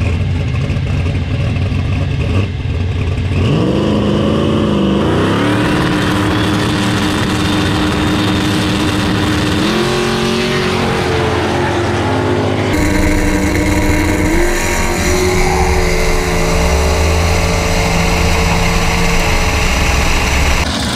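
Drag-racing engines at the start line: a turbocharged race car's engine rumbles, revs up about three seconds in and is held at a steady high pitch with a rising turbo whine above it. The sound then changes abruptly to other race engines running hard.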